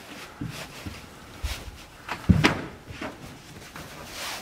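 Quilted cargo blankets being spread and tucked over an aircraft tail assembly on a trailer floor: fabric rustling with a few scattered knocks and thumps, the loudest a little over two seconds in.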